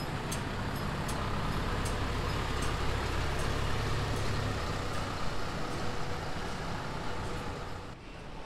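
Diesel engine of a Keifuku route bus running as the bus moves past, its rumble swelling for a couple of seconds and then easing off, with a light ticking during the first second. The sound drops off suddenly near the end.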